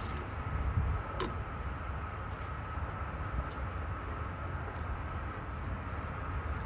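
Steady low machinery rumble with a thin steady whine, and a single sharp click about a second in.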